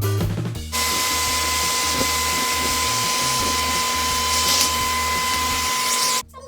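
Hair dryer running steadily at one speed: a loud rush of air with a steady high whine. It cuts in abruptly just under a second in and cuts off shortly before the end.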